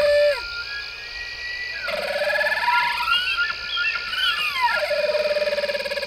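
Bull elk bugling: a call that climbs from a low tone to a high, squealing whistle and slides back down. One call ends right at the start, and a new one begins about two seconds in, peaks in the middle and drops to a lower held tone near the end.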